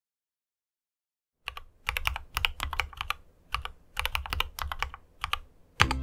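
Mechanical keyboard typing: after about a second and a half of silence, keystrokes come in quick, uneven runs of sharp clicks, ending on one louder stroke near the end.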